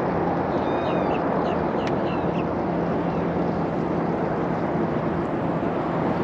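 Steady rushing outdoor noise with a low steady hum under it, and a few short bird chirps in the first couple of seconds.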